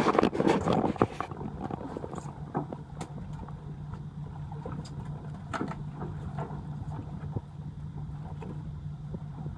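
Fishing boat's engine idling with a steady low hum, with small splashes and water sloshing against the hull. A brief louder rush of noise comes in the first second.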